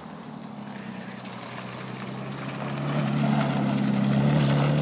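Nissan Skyline's engine running steadily as the car approaches and drives past close by, getting louder until about three seconds in and then holding.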